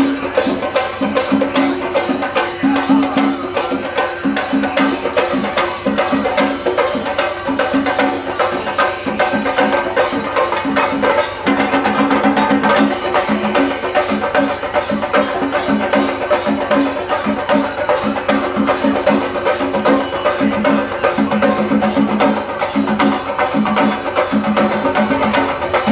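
Loud, fast rhythmic percussion music with drums, beating steadily.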